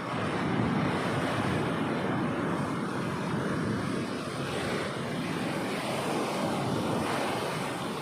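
Sea wave breaking and washing up the beach: a rushing surf noise that starts suddenly and holds steady.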